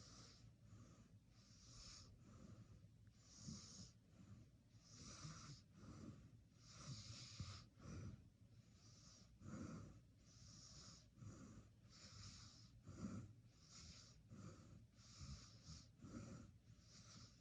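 Faint snoring and heavy breathing of a sleeping person: breathy, hissing puffs with low snorting rumbles in a quick, even rhythm.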